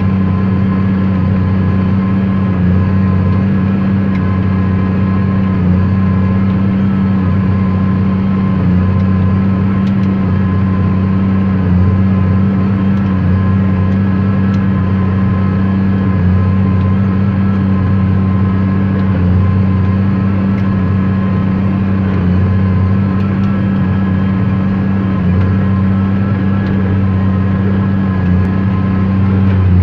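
Tractor's diesel engine running steadily under load while pulling a hay baler down a windrow, heard from the cab: an even, deep drone with a faint steady whine above it.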